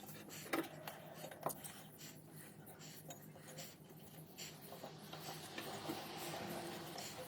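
Hands working the drive belt of a front-loading washing machine back into line on its pulley: scattered light clicks, knocks and rubbing, over a faint steady low hum.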